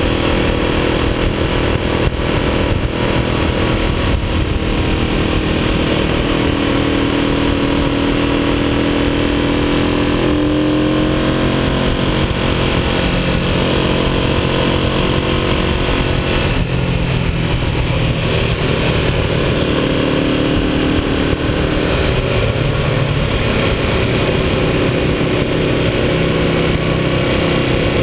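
Vintage motorcycle engine running at road speed, heard from the handlebars with heavy wind rush over it. The engine note shifts a couple of times, about ten and about seventeen seconds in.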